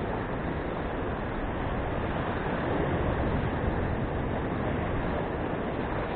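Sea surf washing and breaking against shoreline rocks: a steady rushing noise.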